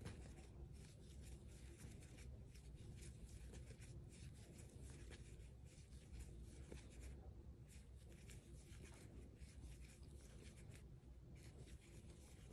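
Faint rasping of yarn drawn through stitches by a small metal crochet hook as single crochet stitches are worked, a quick run of soft scratchy strokes with a couple of short pauses.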